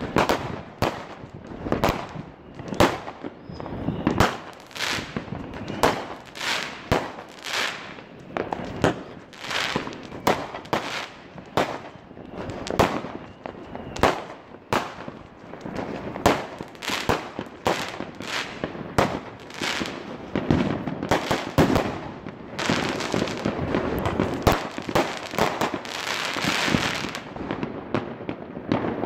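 Consumer fireworks set off by neighbouring households, bursting in a steady, irregular run of sharp bangs about two a second. Near the end they give way to a few seconds of dense crackling.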